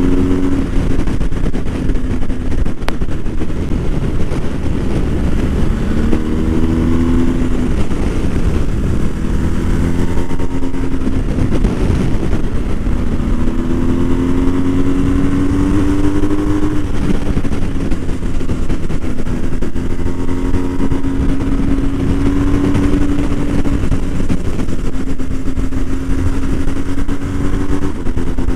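BMW R1250 GS boxer-twin engine pulling under way, its pitch rising and dropping back again and again as the rider accelerates and changes gear, over a steady rush of wind and road noise.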